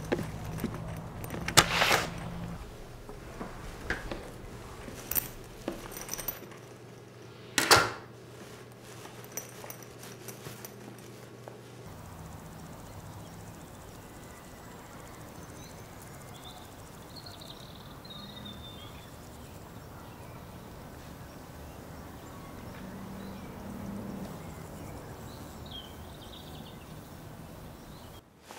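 Footsteps on wooden porch steps and two sharp bangs in the first eight seconds, the second the loudest, over a low hum. After that comes a steady outdoor hush with a few faint high chirps.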